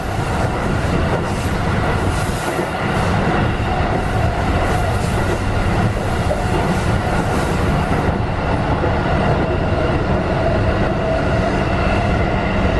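Running noise of a Keikyu 1500 series electric train (Mitsubishi IGBT-VVVF) heard inside the passenger car: a steady rumble of wheels on rail with a few held tones. The high hiss fades about eight seconds in.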